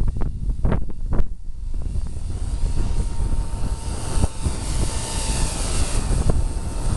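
Gusty wind buffeting the microphone in a loud low rumble, with a few thumps in the first second or so, over the steady thin whine of a 4F200 electric RC helicopter's motor and rotor flying in the wind.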